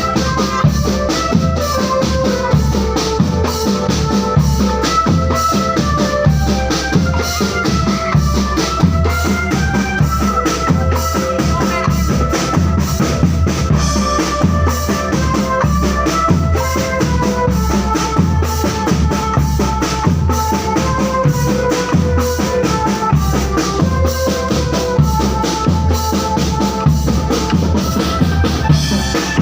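Drum band playing: bass drums and snare drums beating a steady, dense rhythm under a stepped melody line.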